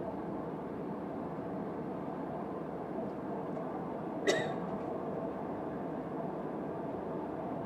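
Steady airliner cabin noise, a low even rush from the engines and airflow. About four seconds in there is one short, sharp noise.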